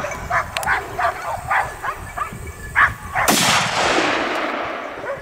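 Hunting dogs barking in short bursts, then a little over three seconds in a single gunshot whose echo rolls on across the valley for about two seconds.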